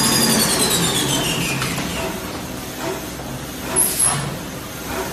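Kitchen-wipes perforating and rewinding machine running, its drive whine falling in pitch as the machine slows over the first two seconds, typical of it winding down at the end of a roll. Two short hissing bursts follow about four seconds in.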